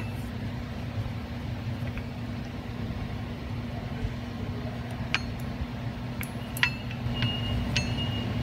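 About five light metallic clinks in the second half, each with a short ring, as the steel anti-extrusion ring and oil port are worked around inside a steel bladder-accumulator shell. A steady low hum sits underneath.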